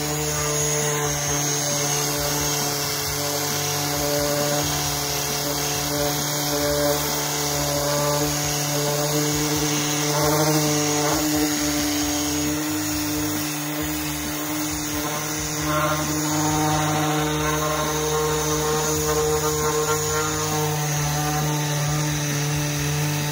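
Handheld electric sander-polisher with a sanding pad running steadily with a constant motor hum, its pad rubbing over body filler on a car's steel quarter panel as the filler spots are sanded smooth.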